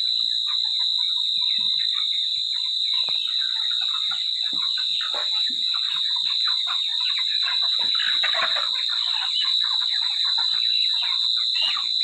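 A flock of 37-day-old broiler chickens calling together: many overlapping short peeps and clucks, busiest about eight seconds in. Over it runs a steady high-pitched whine.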